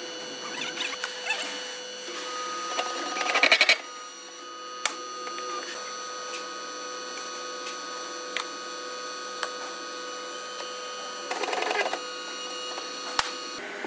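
Bearing press in a machine shop running with a steady whine, with two louder grinding bursts about three seconds in and again about eleven seconds in as the press forces bearings into a cycloid pinwheel reducer housing. A few sharp metal clicks fall between them.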